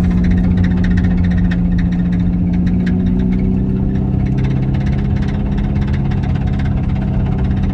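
Steady mechanical drone of the vehicle in motion while the Corvette is towed, heard from inside its cabin: a constant hum with a second, lower hum joining about three seconds in, and light rattles over it.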